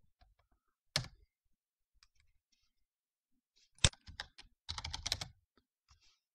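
Computer keyboard keystrokes: a single hard key press about a second in, another a few seconds later, then a quick run of several keystrokes, the sound of a short command being typed and entered.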